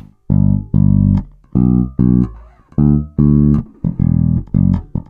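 Ibanez SR300 electric bass with PowerSpan dual-coil humbuckers, pickup blend centred and EQ set flat, playing a phrase of short separate notes with brief gaps between them; a longer held note starts right at the end.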